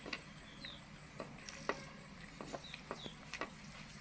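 Small clicks and taps as a young macaque eats greens from a plastic plate, with a few short, high, falling chirps between them.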